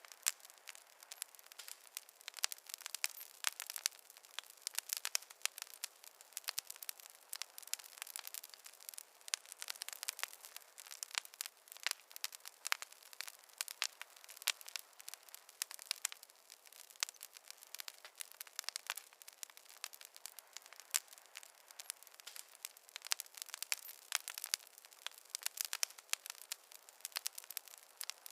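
Fire crackling: a steady stream of small, sharp pops and snaps over a faint hiss, with no low rumble.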